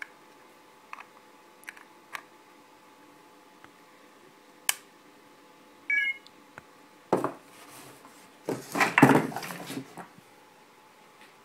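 A few sharp clicks as a USB plug is handled and pushed into a homemade charger box, then a short high beep about six seconds in: an iPhone's chime on connecting to power as it starts charging. From about seven to ten seconds there is loud handling and rustling noise, the loudest sound here.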